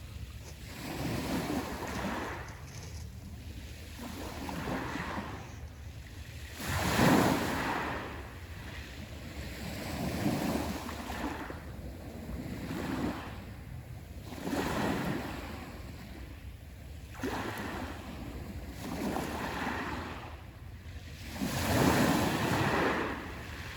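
Black Sea waves breaking on the shore one after another, a wash of surf that swells and falls back every two to three seconds. The biggest waves come about seven seconds in and near the end.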